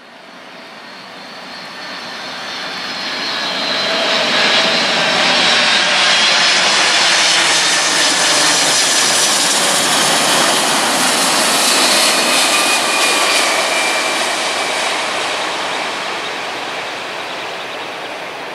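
Boeing 747-400 jet airliner's four turbofan engines on landing approach. A jet roar with a high engine whine on top grows louder over the first few seconds as the airliner comes overhead, holds, then eases off in the last few seconds as it passes and heads down to the runway.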